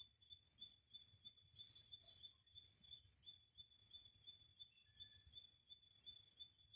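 Faint night chorus of crickets and other insects: several high-pitched trills and pulsing chirps at different pitches, each repeating in its own steady rhythm, over a faint low rumble.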